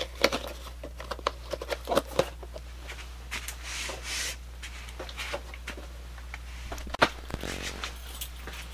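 Items and packaging being handled: scattered light clicks, knocks and rustling, with a short rustle about four seconds in and a sharper click about seven seconds in, over a low steady hum.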